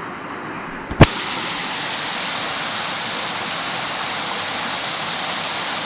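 Waterfall rushing, a steady, even roar. About a second in there is one sharp click, and from then on the roar is louder.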